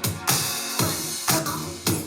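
Electronic dance music with a steady kick-drum beat, about two beats a second, and a cymbal crash just after the start, played back through a JBL portable Bluetooth speaker and picked up by a microphone.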